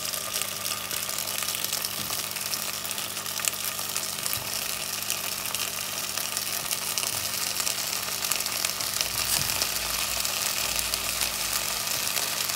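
Oil sizzling steadily in a pot where sliced potatoes are frying on the bottom to form the crust, while drained rice is spooned in on top of them.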